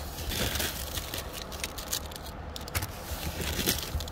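Carded fashion jewelry being handled in a cardboard box: irregular light clicks, clinks and rustles of metal pieces and paper cards, over a steady low hum.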